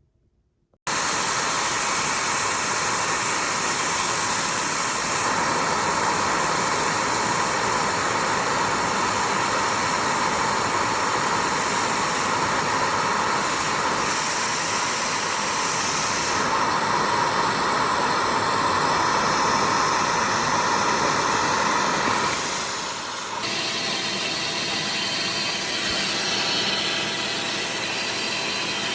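Milling machine running and cutting metal as the cutter is fed deeper to go through the workpiece, a steady mechanical noise that starts abruptly about a second in and steps down a little about 22 seconds in.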